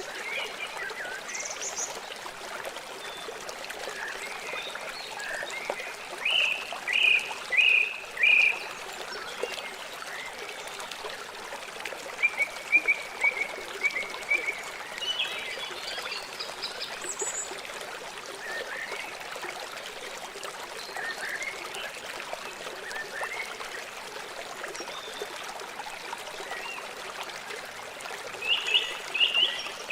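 River water flowing steadily, with bursts of short chirping animal calls, about four quick notes several seconds in, a run of notes around the middle, and another cluster near the end.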